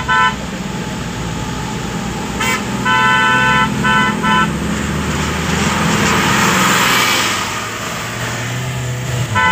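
Car horn honking, heard from inside the car's cabin: a quick double beep, a brief toot, then a long honk followed by two short ones. Underneath runs the steady hum of the engine and road noise, with a rush of noise that swells and fades in the second half.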